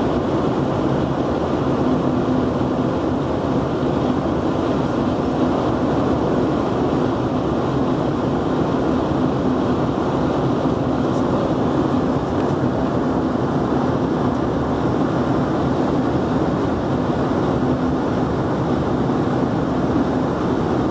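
Steady cabin noise of an Embraer EMB-145 regional jet in flight: an even rush of airflow and its rear-mounted Rolls-Royce AE 3007 turbofans, with a steady low hum underneath.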